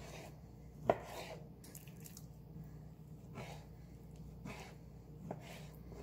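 Sharp knife cutting raw chicken breast into chunks on a wooden cutting board: about four soft knocks of the blade meeting the board, the loudest about a second in.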